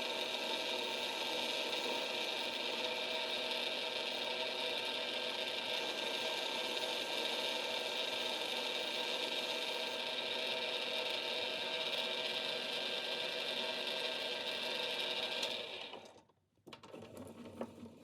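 Small lathe running steadily while turning a taper on a metal part, a motor whine with a hiss of cutting, which stops abruptly about fifteen and a half seconds in. A few faint handling clicks follow.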